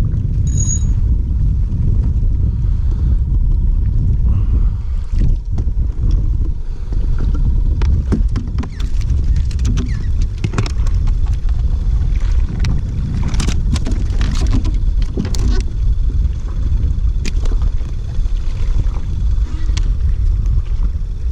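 Wind buffeting the microphone as a steady low rumble, with scattered short clicks and knocks through the middle stretch.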